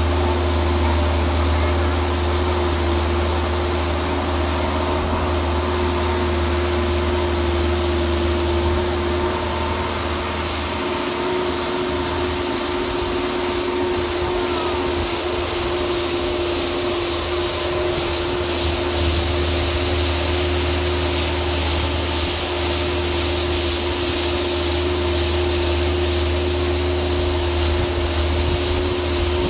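Bobcat skid-steer loader running steadily while its hydraulic rotary broom spins and sweeps snow: a constant engine hum and hydraulic drone under the hiss of brushed, thrown snow, which grows a little louder in the second half.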